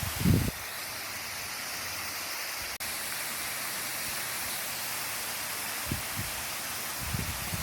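Waterfall rushing with a steady, even hiss, cutting out for an instant about three seconds in. Short low thumps of wind buffeting the microphone come at the start and again near the end; the first is the loudest moment.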